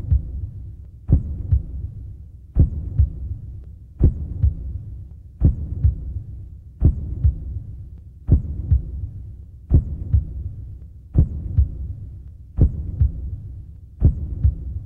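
Slow, heavy heartbeat sound effect: a double thump, lub-dub, about every one and a half seconds, with a low hum fading between beats.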